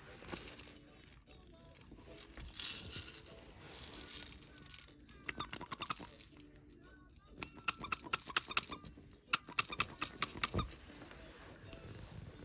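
Plastic toy pieces rattling and clicking as they are shaken and handled, in several bursts of a second or two each, with short pauses between.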